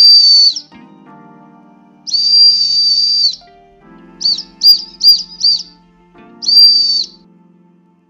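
Tesla Cyberwhistle, a small steel whistle, blown in shrill high blasts: a long blast, then four quick short toots, then one more short blast near the end.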